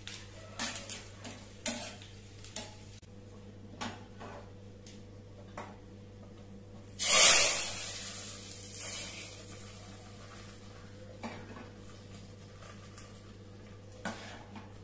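A spatula scraping and clinking in a steel pan of hot tempering: dried red chillies, onion and mustard seeds in oil. About seven seconds in comes a sudden loud sizzle, the tempering being poured into the sambar in a pressure cooker, fading over a couple of seconds. Then a spoon knocks lightly against the cooker as the sambar is stirred.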